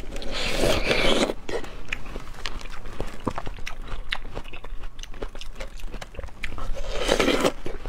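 Juicy bites into ripe watermelon flesh eaten straight from the rind, then wet chewing. Two longer, louder bites come about half a second in and near the end, with soft wet chewing clicks between them.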